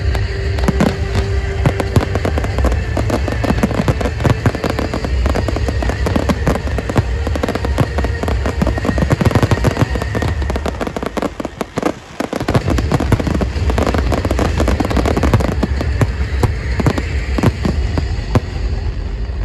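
Finale of a professional fireworks display: a dense barrage of aerial shell bursts and crackling, many reports overlapping, over show music. The barrage thins briefly about twelve seconds in, then picks up again.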